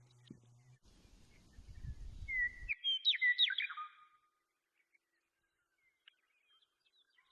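A bird chirping: a quick run of sharp, sliding notes lasting about a second and a half, about two and a half seconds in. A low rumbling noise comes before it.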